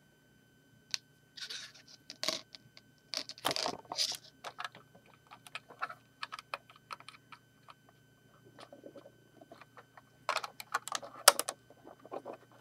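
Plastic LEGO pieces clicking and scraping under fingers as a part is fitted and pressed onto a LEGO boat model. The small clicks come irregularly, busier about two to four seconds in and again about ten seconds in.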